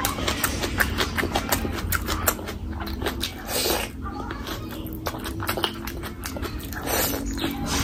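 Close-miked eating sounds: a piece of mutton curry bitten off by hand and chewed, with many quick wet mouth clicks and lip smacks, and two longer noisy sounds, one near the middle and one near the end.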